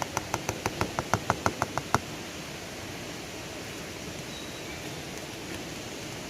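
About a dozen quick, sharp taps, roughly six a second, over the first two seconds, with the last one the loudest. A steady rushing hiss of flowing river water runs under them.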